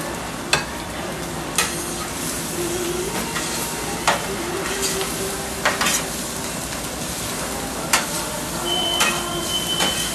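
Fried rice and noodles sizzling steadily on a steel flat-top griddle while metal spatulas scrape and stir. The spatula edges clack sharply against the plate about eight times.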